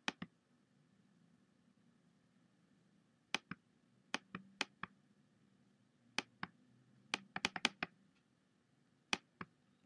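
Irregular sharp clicks of computer keys being pressed, single and in quick runs, with a busy cluster about seven to eight seconds in, over a faint low hum.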